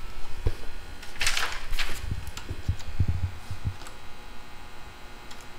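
A brief rustle about a second in, then a few scattered soft clicks and knocks from a computer keyboard as a value is typed in.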